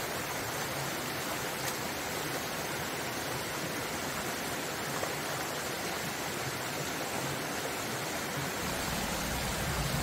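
Mountain stream running steadily over a small rocky cascade into a pool: an even rush of water.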